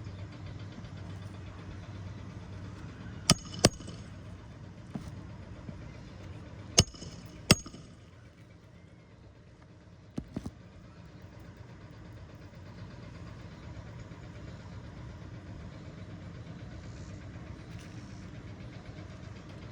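Nailing an asphalt shingle back down on a roof: two pairs of sharp strikes a few seconds apart, then a couple of lighter taps, over a steady low engine-like hum.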